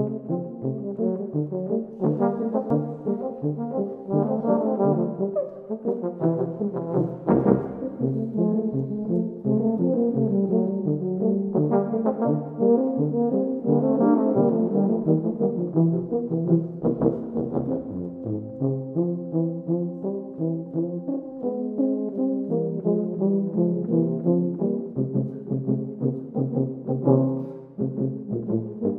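A quartet of tubas and euphoniums playing together: a pulsing bass line of short repeated notes under a melody, settling into longer held notes about two-thirds of the way through before the pulse returns.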